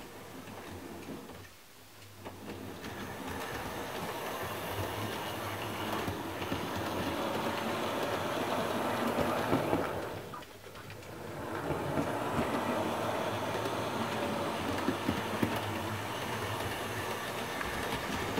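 Roco HO-scale model train, a DB class 051 steam locomotive model with a passenger coach, running on model track: a steady whirr and rumble of the wheels and motor with scattered clicks. It grows louder about two seconds in as the train comes close, dips briefly around ten seconds in, then runs loud again.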